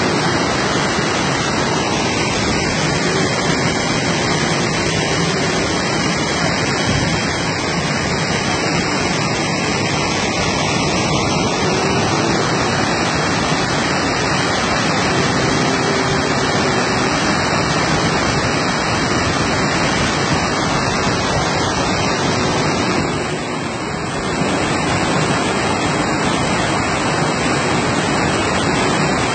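Muddy floodwater pouring over a concrete irrigation weir: a loud, steady rush of water.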